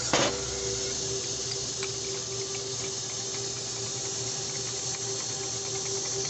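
Diesel engine running at a steady speed, heard as a steady hiss with a faint whine, with one sharp click just after the start.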